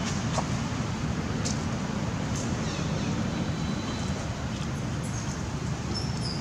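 Steady low rumbling background noise, with a few faint clicks.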